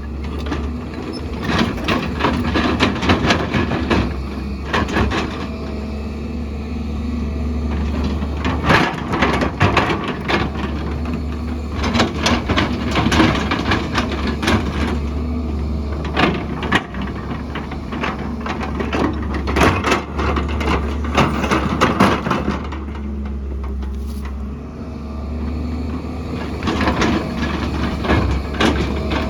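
Heavy diesel earthmoving machine running steadily, with irregular knocks, cracks and scraping of rock and soil as it digs.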